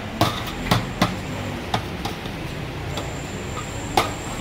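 A steel ladle clinking against steel bowls and a large steel serving pan, about five short sharp clinks, the loudest near the end, over a steady hum of street traffic.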